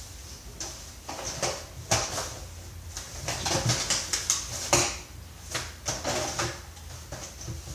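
Irregular clicks, knocks and rattles of plastic vacuum-cleaner parts being handled and pulled apart by hand, some clusters of quick taps with a few louder knocks.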